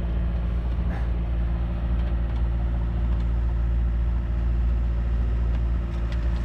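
A sailboat's engine running steadily under power, a low drone that holds one even pitch.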